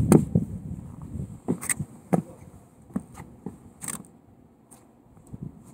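Footsteps and shuffling of high-top basketball sneakers on a wooden deck close to the microphone: a dozen or so irregular thumps and knocks that thin out near the end.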